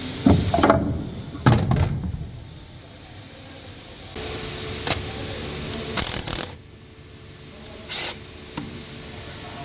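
Several sharp knocks and clatters, with a steady hum starting about four seconds in.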